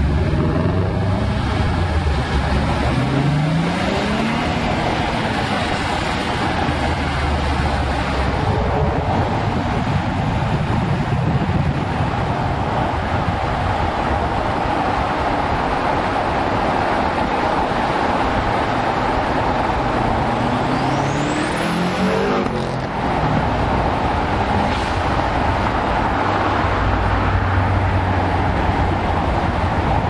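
2002 Audi S4's twin-turbo 2.7-litre V6 pulling under acceleration, heard from outside the car body under a heavy rush of road and wind noise. The engine note rises twice, near the start and about two-thirds of the way through, with a brief dip in level just after the second rise.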